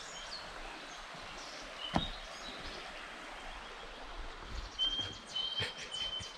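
Outdoor ambience: a steady hiss of background noise with a bird calling in short whistled notes, three times at one pitch near the end, and a single knock about two seconds in.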